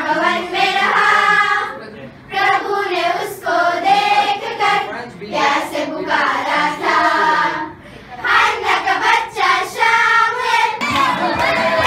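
A group of girls singing together in chorus, in short phrases with brief breaks between them.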